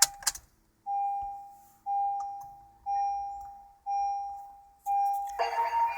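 2013 Honda Civic's dashboard warning chime, a single tone that sounds about once a second, five times, each one fading away, after a click at the start. Near the end, the car's stereo starts playing music through the newly fitted amplifier and trio speaker box.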